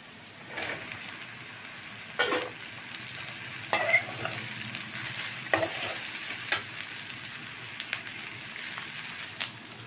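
Okra frying with onion and spice masala in oil in an aluminium kadhai, a steady sizzle. A steel spatula scrapes and knocks against the pan every second or two as it turns the okra.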